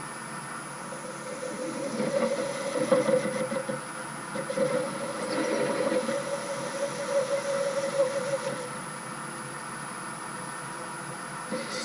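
Myford metal-turning lathe running with a steady hum. From about two seconds in until near the end, the cutting tool takes a light cut into an aluminium ball handle, making a louder, rougher cutting noise that rises and falls, then the lathe runs on alone.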